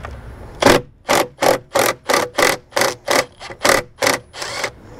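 Milwaukee cordless impact driver run in short trigger pulses, about a dozen in a row at roughly three a second starting about half a second in, gently backing out the bolts on the stock intake.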